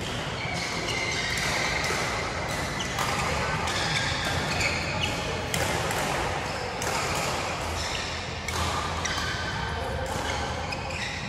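Badminton play: repeated sharp hits of rackets on the shuttlecock and footfalls on the court, coming irregularly every half second or so, over a steady background hum of the hall.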